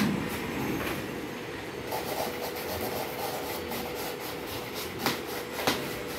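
Large corrugated cardboard sheet being shifted and folded on the floor around a bubble-wrapped glass tabletop: steady scraping and rustling, with two sharp clicks about a second before the end. A steady hum runs underneath.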